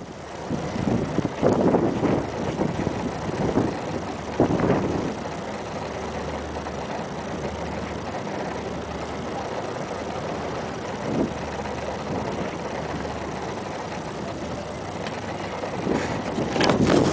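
Dust-storm wind rushing over the microphone, gusting in the first few seconds and again near the end, with a steadier stretch in between over a faint low hum.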